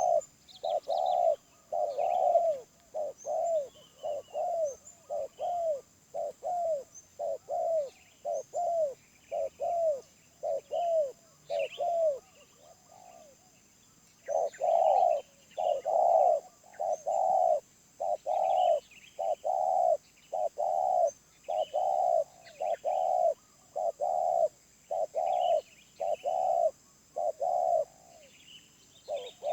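Spotted dove (tekukur) cooing: a long run of short, repeated coo notes, about one and a half a second, which pauses for about two seconds near the middle and then resumes. Faint chirps of small birds sound over it.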